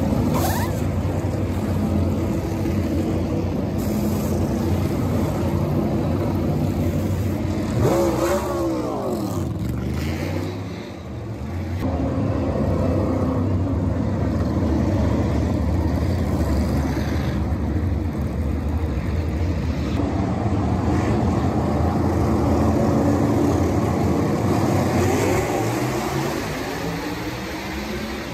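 NASCAR Cup Series stock cars' V8 engines running at racing speed as cars go past one after another. About a third of the way in, one car's engine note falls in pitch as it passes.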